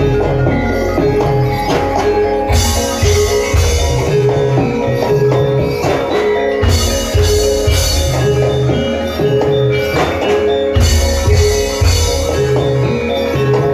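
Javanese gamelan music of the kind played for a kuda kepang dance: struck metal keys and gongs ringing out a repeating melody over steady drum strokes.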